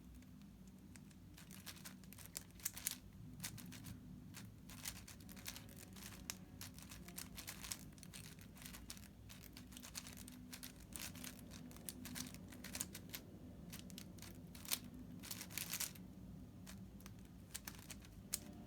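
A 5x5 speed cube being turned fast by hand in the last stage of a timed solve after edge pairing: a quick, irregular run of faint plastic clicks and clacks over a steady low hum.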